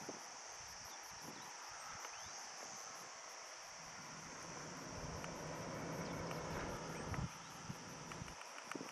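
Insects droning steadily at a high pitch, with a few soft footsteps. About halfway through, a low, even hum comes in for roughly three seconds, then stops.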